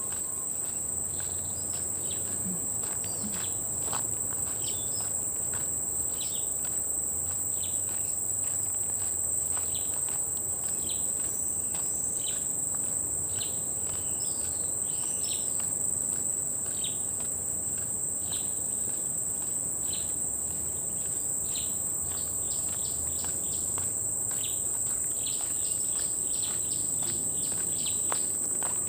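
Steady high-pitched drone of a tropical insect chorus, with many short chirping calls layered over it, coming in quick runs near the end.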